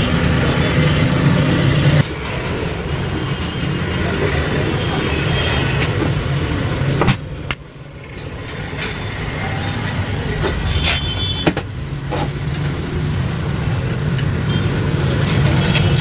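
Steady low background noise, with a few sharp clicks and knocks from the vacuum cleaner's screws and plastic covers being handled during reassembly.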